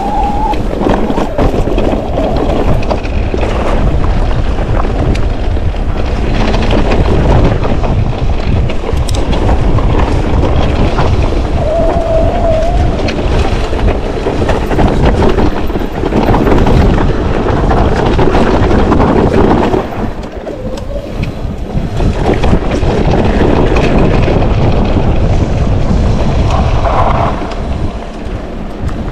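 Wind buffeting the camera microphone and the rattle and knocking of a Propain Ekano electric enduro mountain bike riding a rough dirt descent. Short rising whines come at the start and again about twelve seconds in, and the noise drops briefly around twenty seconds in and again near the end.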